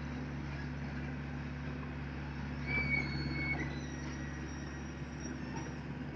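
Komatsu excavator's diesel engine running steadily while it works its boom, with a brief high-pitched whine about three seconds in.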